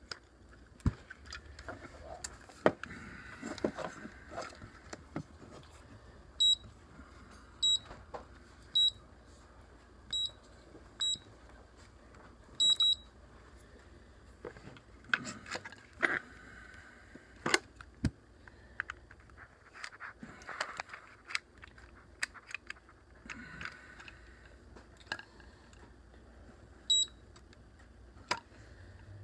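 LaGard electronic safe-lock keypad giving short high beeps as its buttons are pressed: six beeps about a second apart, the last one doubled, then two more near the end. Sharp clicks and knocks of the keypad and its connector being handled run throughout.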